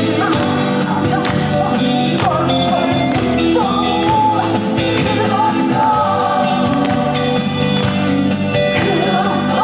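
Live trot music: band backing with a singing voice carrying a gliding melody.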